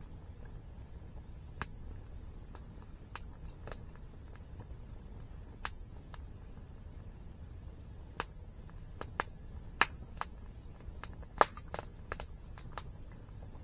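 Wood fire crackling, with irregular sharp pops and snaps that come thicker in the second half, over a steady low rumble.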